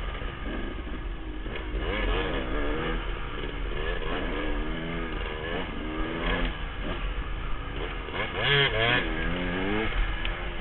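Dirt bike engine revving up and down over and over as the rider works the throttle on a trail climb, with a louder, higher rev about eight seconds in.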